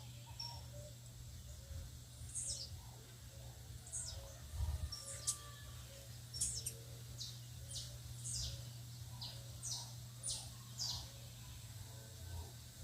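Wild birds calling: many short, sharp high chirps that sweep downward, roughly one a second, over a run of shorter, lower notes. A steady low hum lies beneath, with a brief low rumble about four and a half seconds in.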